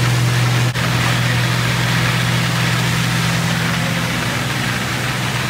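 A large engine running steadily at a constant speed: an unbroken low hum with a hiss over it. The sound briefly drops out under a second in.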